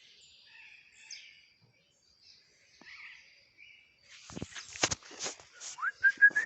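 Faint birds chirping in the background, then from about four seconds in a quick run of sharp knocks and clicks close by, with a short high whine that rises and then holds near the end.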